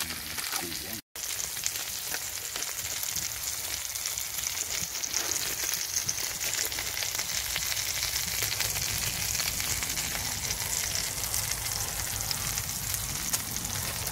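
Bacon, sausages, burgers and black pudding frying in a pan on a wood-burning stove, a steady dense sizzle and crackle of hot fat. The sound drops out for a split second about a second in.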